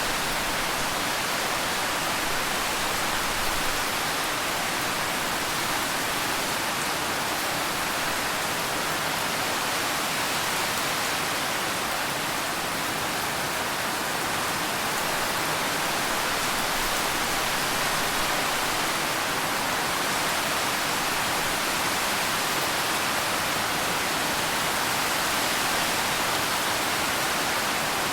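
Rain falling steadily: an even hiss with no separate drops, thunder or other events standing out.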